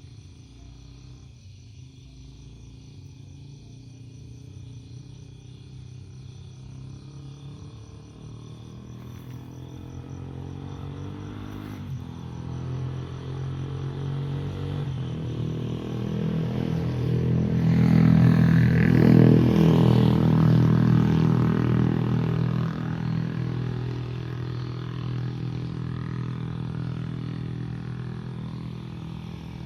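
A motor engine running at a steady pitch as it passes by: it grows slowly louder, is loudest about two-thirds of the way through, then fades away.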